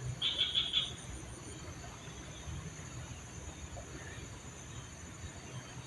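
Outdoor ambience with insects singing steadily in the background. About a quarter second in comes a short run of rapid, high chirps lasting about half a second.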